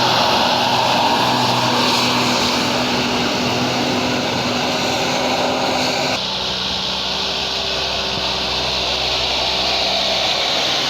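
Tour bus diesel engine pulling up a steep hill, a loud, steady drone. About six seconds in the sound changes abruptly to a deeper, lower engine hum.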